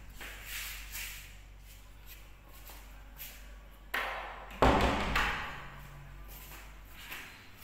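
Sharp knocks and lighter taps that ring on briefly in a hard-surfaced room, the two loudest close together about four seconds in.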